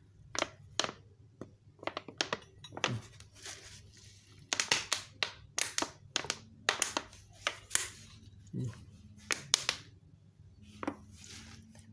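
Irregular clicks, knocks and short rustling noises of a dirty car carburetor body being handled and turned over a bucket while it is cleaned.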